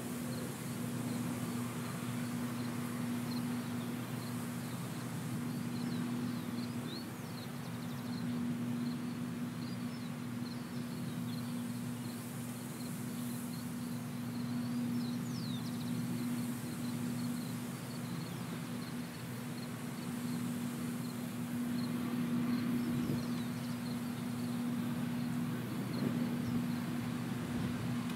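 John Deere S550 combine harvesters running steadily while harvesting wheat: an even engine hum that grows slightly louder near the end as a combine draws closer. Faint high chirps are heard over it.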